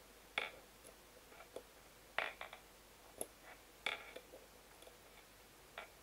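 Scattered soft clicks and taps as foam adhesive dots are peeled from their backing sheet with a pick tool and pressed onto card stock, about half a dozen in all, the sharpest a little after two seconds and near four seconds in.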